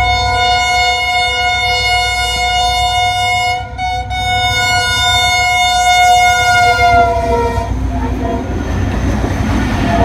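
HGMU-30 diesel-electric locomotive's horn sounding one long, loud blast with a brief break about four seconds in, the pitch sagging slightly as the locomotive passes at speed. A low engine rumble runs underneath, and after the horn stops the rushing rumble of the coaches going by takes over.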